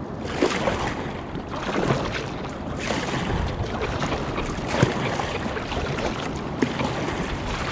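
Sea water sloshing and splashing against a fishing kayak in uneven surges, with wind noise on the microphone.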